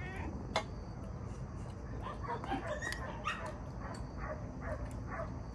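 Domestic cat mewing in a series of short calls, begging for food. A single sharp click sounds about half a second in.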